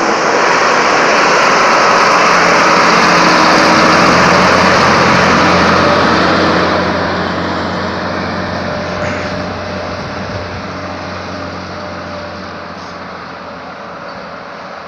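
A vehicle engine running steadily under a loud rushing noise, peaking a few seconds in and then growing steadily fainter.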